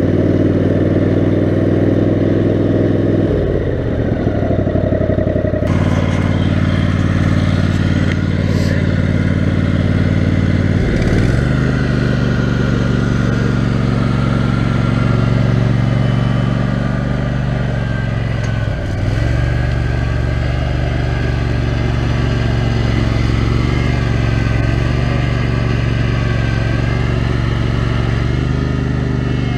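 Kohler 18 HP Command engine of a 6x4 offroad lawn mower running continuously. Its pitch sags and picks back up three times, as if momentarily lugged or let off the throttle.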